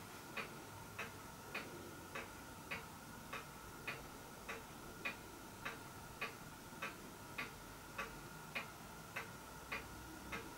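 Faint, steady clock ticking, a little under two ticks a second, evenly spaced.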